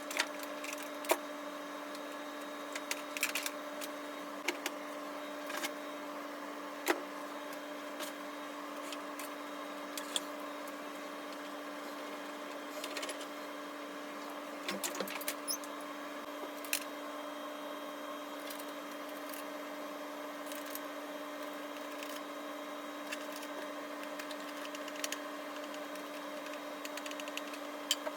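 Scattered light clicks and knocks of parts being handled while a gas-strut monitor mount is assembled, with a short flurry of clicks about halfway through, over a steady hum.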